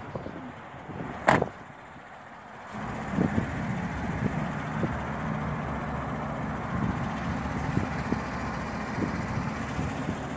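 A truck door shuts with a single sharp knock about a second in. From about three seconds in, the 2014 GMC Sierra's engine idles steadily, with outdoor background noise.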